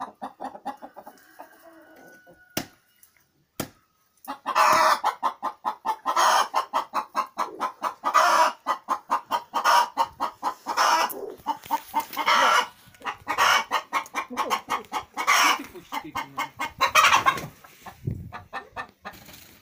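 A chicken clucking in long, rapid runs of short calls, several a second, starting about four seconds in after a quieter stretch with a couple of sharp clicks.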